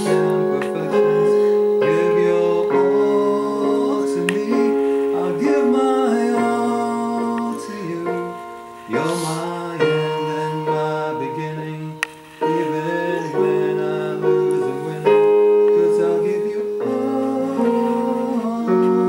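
Electronic keyboard played with a piano sound, held chords under a man singing into a microphone, with brief breaks between phrases.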